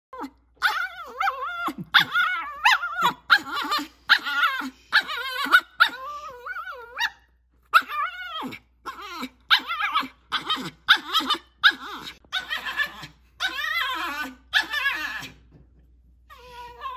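Cavapoo puppy barking and whining in a long string of short calls, about two a second, each bending up and down in pitch.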